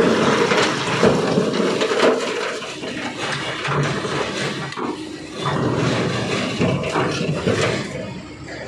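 Tracked excavator working under load while its bucket tips broken rock into a steel truck bed, the stone rushing and clattering down. The noise is loudest at the start and again about halfway through.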